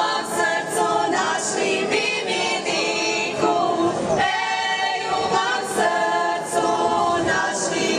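A group of women singing a Croatian folk song together in harmony, with long held notes.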